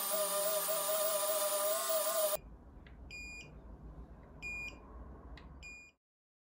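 A small high-speed rotary tool runs with a steady whine, grinding back an epoxy-repaired switch part, and stops abruptly a little over two seconds in. Then a multimeter's continuity tester gives three short beeps as its probes touch the switch contacts, showing that the repaired switch conducts.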